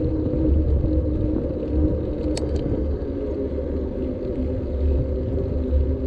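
Riding noise from a bicycle-mounted action camera: a fluctuating low rumble of wind on the microphone, with a steady hum from the tyres on the road. A single short sharp click comes a little over two seconds in.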